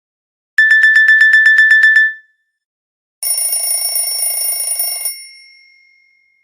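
Nokia E71 phone's built-in clock alarm tones: a rapid run of identical electronic beeps, about seven a second, for a second and a half. Then, after a short gap, a second alarm tone rings for about two seconds and stops abruptly, leaving a fading ring-out.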